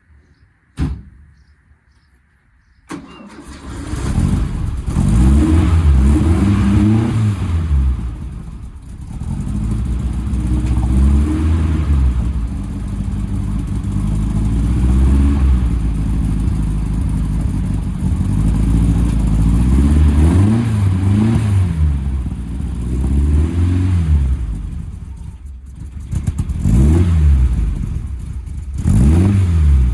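Air-cooled VW split-screen bus engine starting: a short click, then the engine catches about three seconds in and runs, revved up and down again and again.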